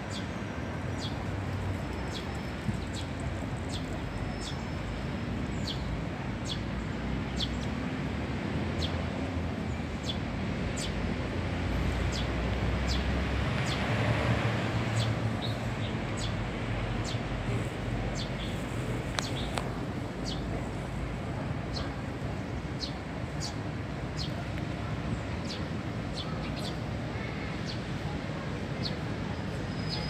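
Sparrows chirping: many short, high chirps, scattered irregularly, over a steady low background rumble that swells a little about halfway.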